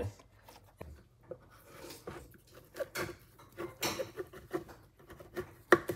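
Soft handling sounds as a chef's knife trims chicken of the woods mushroom on a bamboo cutting board: scattered light taps and knocks, the sharpest near the end.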